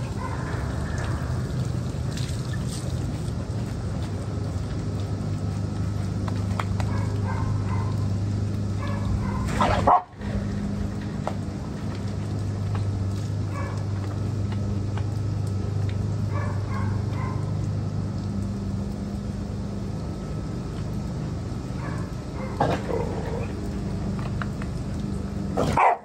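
American Bully dogs barking and yipping now and then, over a steady low hum. The sound breaks off briefly about ten seconds in.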